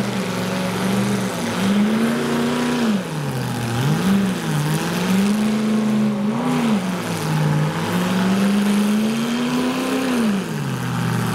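Full-size demolition derby car engine revving hard and dropping back about four times as the wrecked cars shove against each other in the mud.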